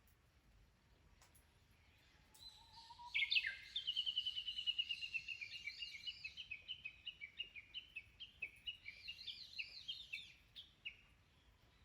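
A songbird singing one long song, starting about three seconds in and lasting about eight seconds: a rapid run of short notes falling in pitch, then quick repeated chirping phrases.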